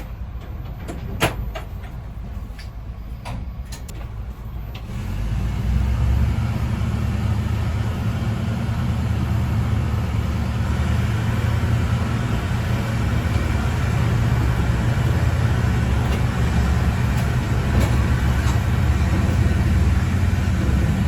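Ex-JNR KiHa 20-series diesel railcar KiHa 205, heard from the cab. It runs quietly with a few sharp clicks at first, then about five seconds in its diesel engine comes up to power with a loud low drone that holds steady.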